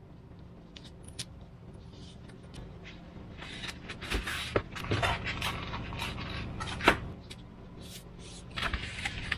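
Hands handling Depron foam wing and aileron pieces with tape hinges: intermittent rustling and scraping with scattered light clicks, one sharper click about seven seconds in.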